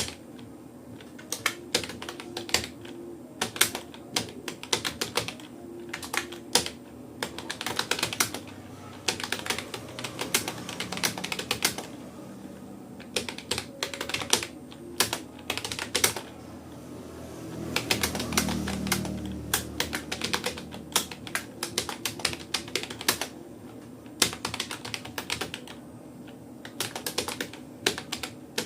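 Typing on a Rapoo computer keyboard: irregular runs of key clicks with brief pauses between bursts, at an uneven typing-test pace. A low rumble swells and fades about two-thirds of the way through.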